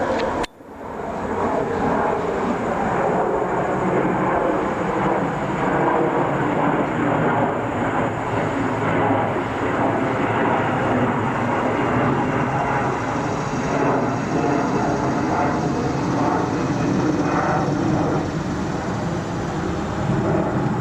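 Jet airliner engines: a loud, steady rushing noise, briefly cut off about half a second in.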